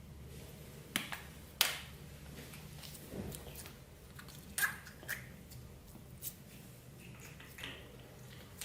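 Clear slime being squished and worked by hand, giving irregular sharp pops and clicks with softer crackling between them.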